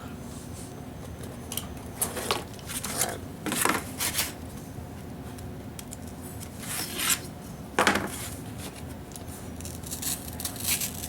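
Cardboard and a straight edge being handled and rubbed on a work surface: a series of short scrapes and rubs, the loudest about eight seconds in.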